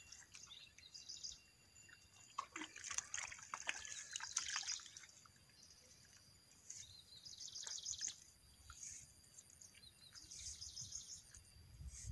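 Faint chirps of small birds, and light splashes of muddy water as rice seedlings are pushed into a flooded paddy. The splashes cluster a few seconds in, and short high trills come later.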